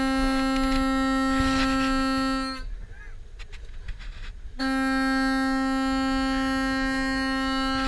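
Hand-pumped bellows foghorn sounding two long blasts on one steady note, the first at the start and the second beginning about halfway through, after a short pause.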